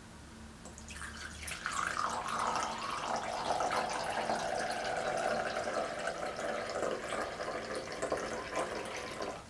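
Coffee pouring in a thin stream from a glass carafe into a ceramic cup. It starts about a second in, its tone slowly drops as it goes, and it stops abruptly just before the end.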